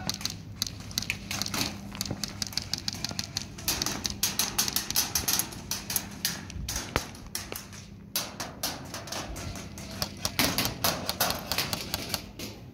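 Airsoft rifles firing in bursts of rapid clicks, several guns rattling away at once and pausing between strings of shots.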